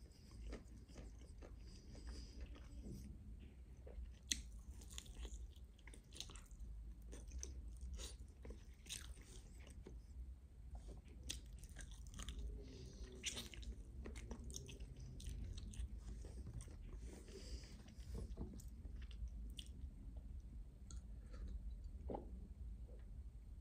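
Close-up eating sounds of crispy-skinned roast chicken drumsticks: bites tearing the meat off the bone, then chewing with light crunches.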